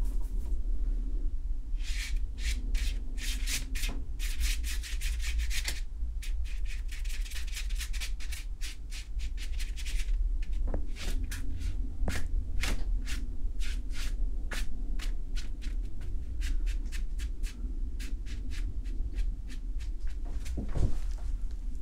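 Watercolour brush scrubbing paint into rough watercolour paper: a long run of short, scratchy strokes, quick and dense for the first few seconds, then slower and more spaced out.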